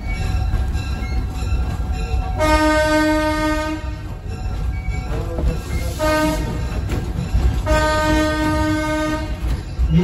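Train horn sounding one steady single-pitched note in the long, long, short, long pattern of a grade-crossing warning, heard from inside a moving passenger car over the steady low rumble of its wheels on the track.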